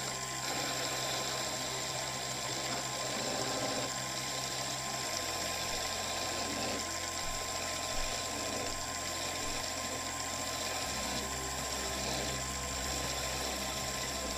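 Wood lathe running at steady speed: a motor hum with a thin steady whine, while a turning tool rounds off the back end of a small wooden top spinning in a collet.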